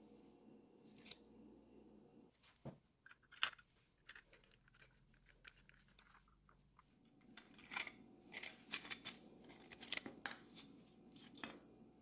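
Faint clicks, taps and scrapes of a Jada Just Trucks 1980 Chevrolet Blazer die-cast model being handled and taken apart by gloved hands, its metal body and plastic chassis knocking together, with a quick run of clicks in the second half.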